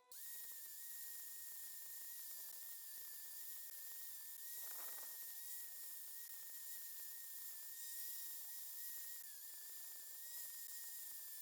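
Angle grinder switched on and running with a steady high whine, grinding a hardwood knife handle; the pitch dips slightly under load, and a short rougher grinding burst comes about five seconds in.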